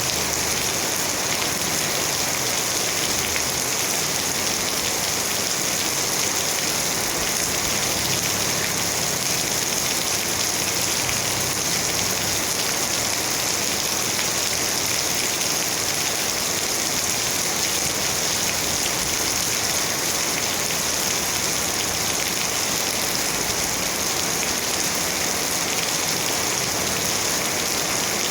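Steady rain falling, an even hiss of drops on surfaces with no breaks.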